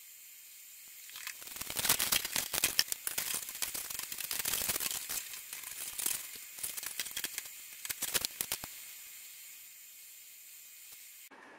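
Aluminium foil crinkling and crackling as hands squeeze and wrap it around a wire leg armature. It starts about a second in, runs in irregular crackles, and dies away after about eight seconds.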